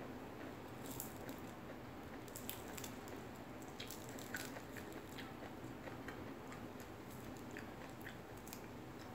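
Faint eating sounds: chewing, with scattered small crisp ticks as fried salted fish is picked apart and its skin peeled off by hand.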